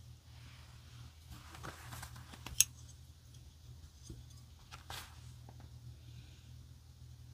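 Paper journal pages handled and rustled, with one sharp metallic click about two and a half seconds in as a metal binder clip is opened off the pages, and a softer paper crackle a couple of seconds later.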